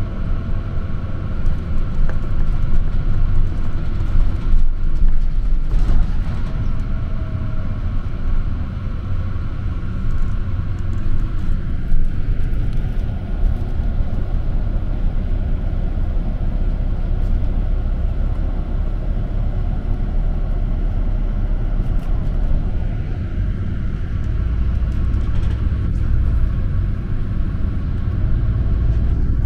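City bus interior while the bus is moving: a steady low rumble of engine and road noise, with a faint steady tone higher up.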